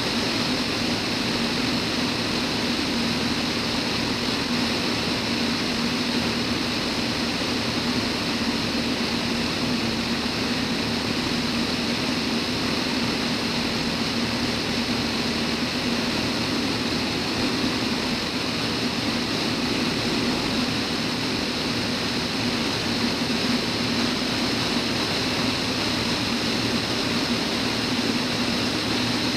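Van's RV-10's piston engine and propeller droning steadily in flight, heard inside the cabin as an even low hum with a rushing hiss of air over it.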